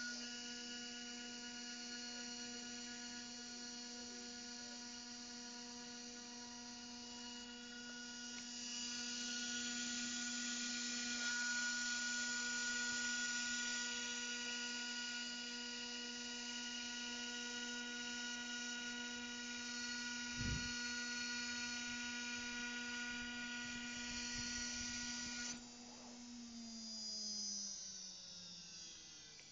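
Desktop CNC router's high-speed spindle running at a steady pitch while working a circuit board, with a cutting hiss that swells about a quarter of the way in. Near the end the hiss stops and the spindle's whine falls in pitch as it winds down.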